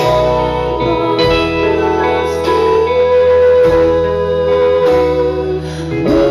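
Live band music: an instrumental passage of guitar over a low bass, with held chords that change about every second and a bit.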